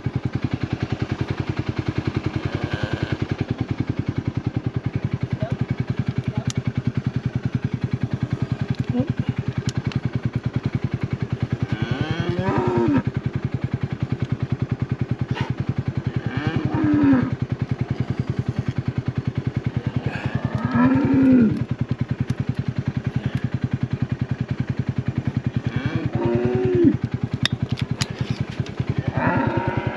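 Calves mooing about five times, each call rising and then falling in pitch, over an engine idling steadily with an even, rapid pulse.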